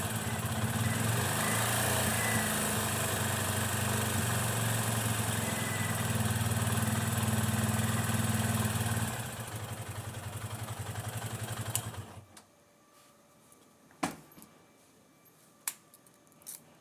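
Yamaha FZ25's single-cylinder engine running with the coin-like ticking rattle its owner is chasing, thought to be valve clearance though the valves have already been adjusted. About nine seconds in the revs drop to a pulsing idle, the engine is switched off about three seconds later, and a few separate clicks follow.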